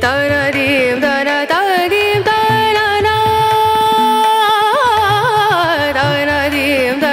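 Background music in an Indian classical style: a sung melody with a long held note in the middle and quick wavering turns after it, over soft low drum strokes.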